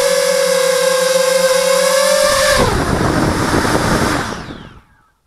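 Thorax hexacopter's six Multistar Elite 2204 brushless motors with Gemfan three-blade props, heard from the onboard camera, whining at a steady pitch. About two and a half seconds in the whine drops away into a rough rattling noise as the craft comes down into the grass, then fades out near the end.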